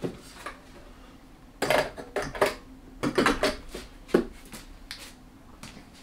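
Metal clunks and clatter as a diesel heater on its steel mounting bracket is handled and set down onto a steel stand on a workbench. A run of knocks comes in the middle, ending with one sharp knock.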